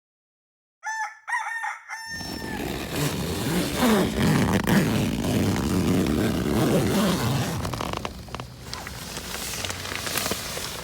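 A rooster crowing in short pitched pulses about a second in, then a loud, rough rushing noise that stays until near the end.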